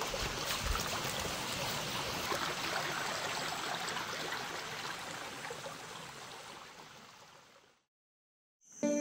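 A stream running with a steady rushing and gurgling, with a few soft low thumps near the start, fading gradually away to silence shortly before the end.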